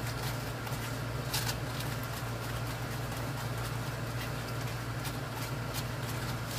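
Steady low background hum, with a few faint light clicks and taps from work at the bench.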